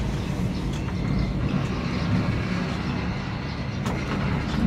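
Steady low rumble and hum inside an enclosed cable car cabin running along its cable, with a few light clicks near the end as it nears a support tower.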